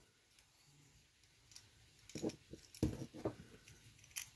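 Small diecast metal and plastic toy parts clicking and knocking as they are handled. This is the ladder and gear mechanism of a Corgi Major fire engine. It is quiet at first, then about half a dozen light clicks come over the second half.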